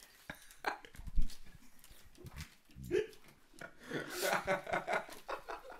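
A man spluttering out a mouthful of liquid as he breaks into laughter, with a sharp splutter about a second in and broken laughter near the end.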